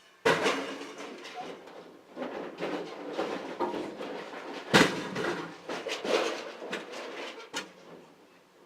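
Scrap metal being thrown off a truck: a run of clanks and clattering bangs of metal on metal, the loudest a sharp bang about five seconds in.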